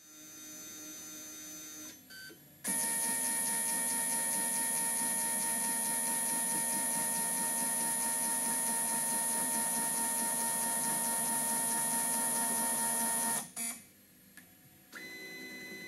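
Stepper motor drives of a CNC-converted Optimum TU 2004V mini lathe moving the carriage and cross slide: a steady whine of several fixed tones that starts suddenly about three seconds in and stops about thirteen seconds in. A quieter motor hum comes before it, and another starts near the end.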